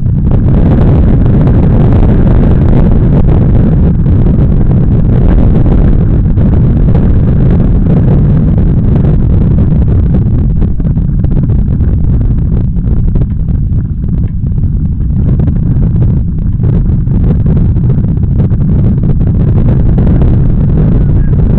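Wind buffeting the microphone on a small open sailboat under sail: a loud, steady low rumble, with water rushing along the hull.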